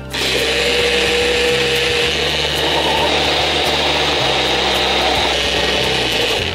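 Personal bullet-style blender motor running at full speed, blending leaves in water into a green liquid. It starts suddenly, runs steadily for about six seconds and cuts off.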